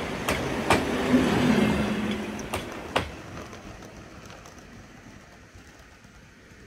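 Double-headed OO gauge model train running past close by: motor hum and wheel clatter with a few sharp clicks, fading away after about three seconds as the train moves off.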